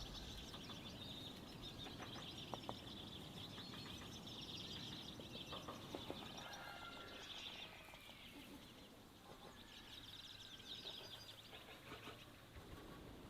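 Faint, steady chorus of many small birds chirping and twittering, busier in the first half and thinning after about seven seconds, with a few light clicks.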